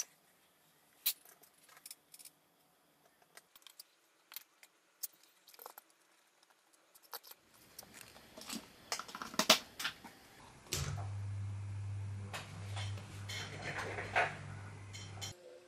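Small clicks and taps of wire connectors and parts being handled on a pan-tilt camera mount, growing denser, with one sharp click. From about eleven seconds a steady low hum, which fits the mount's motor running under power, goes on for a few seconds under more clicking and cuts off suddenly.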